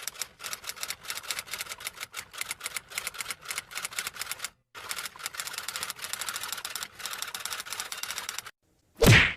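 Typewriter typing sound effect: a rapid run of keystroke clicks, a brief pause just past halfway, then more fast typing, and one short loud sound near the end.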